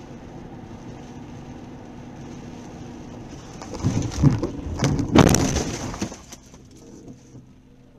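Steady road noise inside a car on a wet road, then about four seconds in a car collision: several loud bangs and crunching over about two seconds, dying away after.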